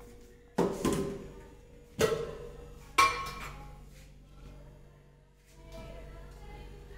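Steel kitchen utensils clinking: a spoon knocking against steel cups and bowls, four sharp ringing strikes in the first three seconds, then lighter clinks near the end.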